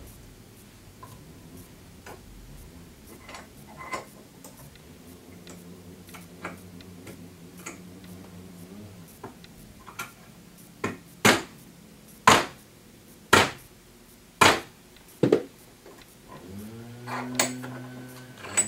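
Small hammer tapping a hard push-in bumper into a German-style hair shear clamped in a bench vise: about six sharp taps roughly a second apart, after a few light clicks as the vise is tightened.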